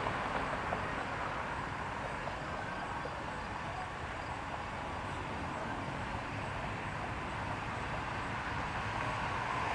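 Steady outdoor background rumble with no distinct events, the kind of distant vehicle and engine noise heard around an airport.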